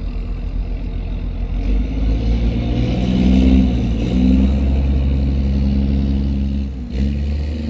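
Engine of a heavy marina boat-handling vehicle running, picking up revs about two seconds in and then holding steady under load.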